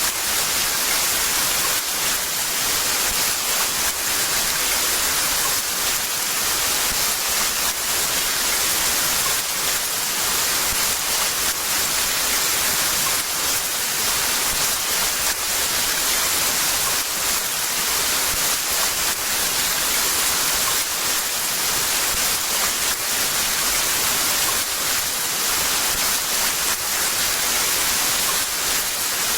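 Heavy rain falling steadily, a dense, even hiss with many fine drop ticks.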